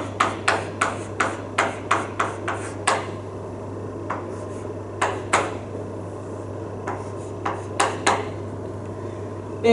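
Chalk tapping and scratching on a blackboard as an equation is written: a quick run of sharp taps, about four a second, for the first three seconds, then scattered taps with short pauses between strokes.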